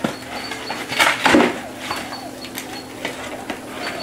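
Cardboard toy box being handled and turned over: flaps and sides tapping and scraping, with a louder cardboard scrape and rustle about a second in.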